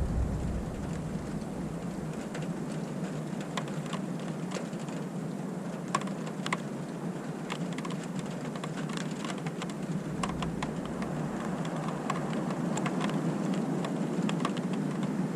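Steady rain falling, with individual drops clicking sharply on a hard surface close by; the drop clicks come more often from a couple of seconds in.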